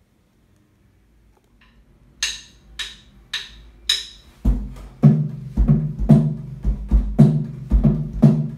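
Drumsticks clicking together four times, about half a second apart, as a count-in. A drum kit then comes in with a steady beat of deep kick-drum thumps and snare hits.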